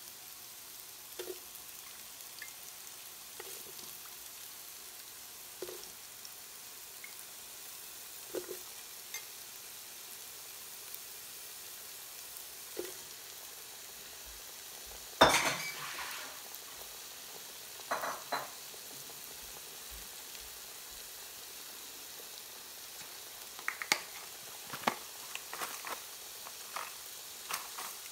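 Onions and halved potatoes frying in oil in a large pot, a steady sizzle. Scattered knocks and clatter in the pot break through it, the loudest about halfway through and a quick run of them near the end.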